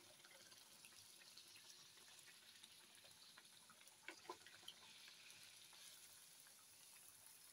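Gol gappa puris deep-frying in hot oil in a kadhai, a faint steady sizzle as oil is spooned over them to puff them up. A couple of faint clicks about four seconds in.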